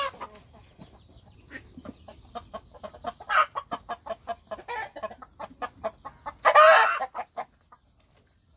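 Chickens clucking in a run of short, quick clucks, with a louder call about three and a half seconds in and a longer, louder pitched call about six and a half seconds in.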